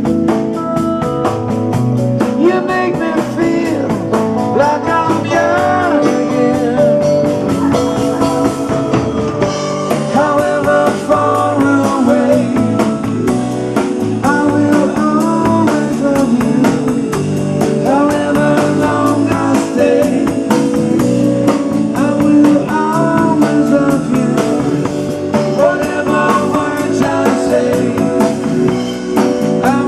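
Live band playing a love song: a singer over guitar and a drum kit keeping a steady beat.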